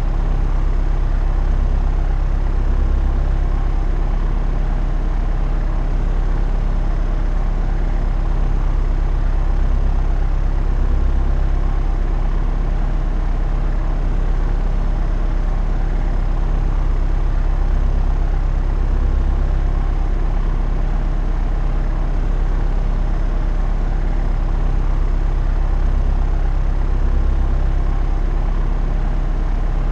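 Propeller aircraft in cruising flight: steady drone of the engine and propeller, strongest in the low range, with a slow beating swell every few seconds.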